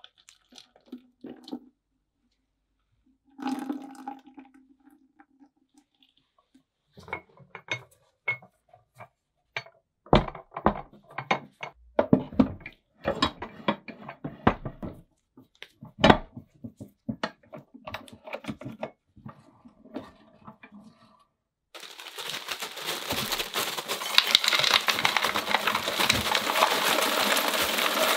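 Faint pouring of ice cream mix into the metal canister of an antique Frost King hand-cranked ice cream maker. Then a run of sharp clicks and metal clanks as the cast-iron crank and gear frame is fitted onto the wooden tub. From about 22 s on comes the loudest part, a continuous dense clatter of ice cubes poured from a plastic bag into the wooden tub.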